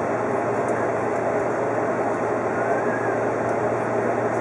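Odakyu 50000-series VSE Romancecar running along the line, heard from inside the front car: a steady rumble of wheels on rail with a constant low hum.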